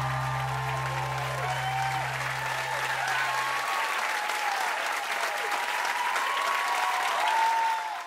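Studio audience applauding and cheering with whistles, while the band's final held guitar and bass note rings under it and stops about halfway through. The sound cuts off abruptly at the very end.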